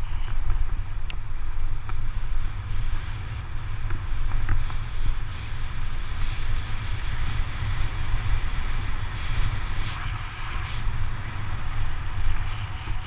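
Wind buffeting the microphone of a moving camera: a loud, irregular low rumble with a thin hiss over it and a few faint ticks.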